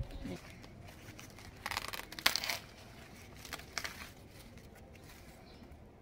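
Sweetcorn plant leaves and husk rustling and tearing as an ear of corn is pulled from the stalk. The sound comes in a few short bursts, loudest about two seconds in, with smaller ones near four seconds.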